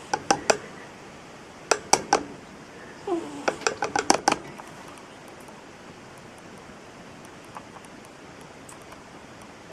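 Ferret snoring: three clusters of sharp, clicking snorts in the first four and a half seconds, the last and longest one led in by a short falling tone. After that there is only faint steady background noise.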